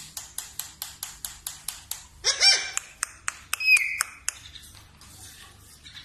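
Caged ring-necked parakeets: a fast run of sharp clicks, about seven a second, for the first two seconds, then a short squawk and a brief whistled note.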